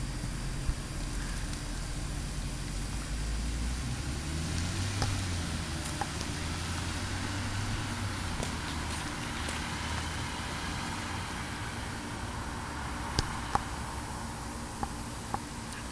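Car engine pulling away and driving off, rising in pitch as it accelerates a few seconds in, then fading as it moves away. A few sharp clicks near the end.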